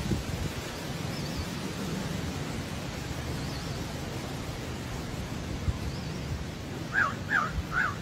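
A crow cawing three times in quick succession near the end, over a steady low background rumble and hiss, with faint high bird chirps about once a second.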